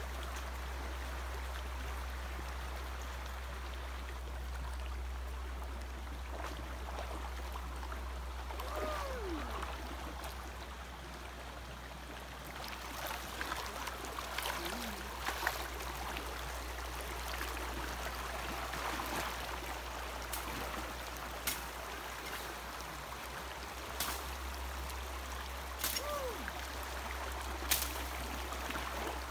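Shallow stream flowing over rocks, a steady wash of running water with a low rumble under it. A few sharp knocks and splashes come as someone wades and works in the water, and two short falling calls are heard, about nine seconds in and near the end.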